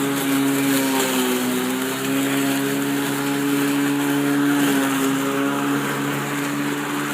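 Electric lawnmower, converted to run without its battery, running steadily with a loud motor-and-blade hum whose pitch dips briefly about a second in and then recovers.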